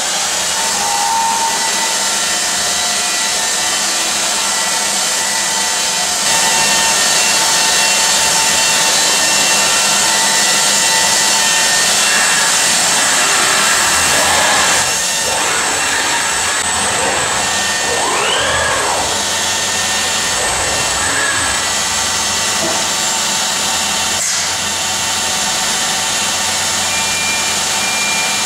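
Robot-held abrasive belt grinder running on stainless steel, grinding down weld seams. A steady grinding hiss with a motor whine, louder for a stretch in the first half, with a few brief pitch glides later.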